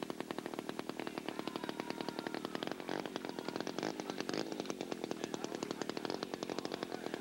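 Model aircraft engine running steadily at low speed, a rapid even popping.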